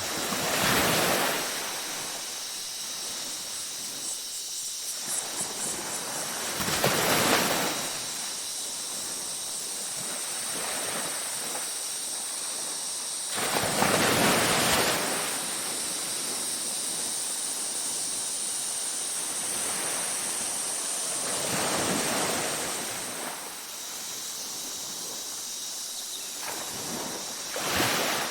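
Ocean waves breaking and washing up on a beach, five swells rising and falling about every six to eight seconds. A steady high-pitched ringing runs behind them.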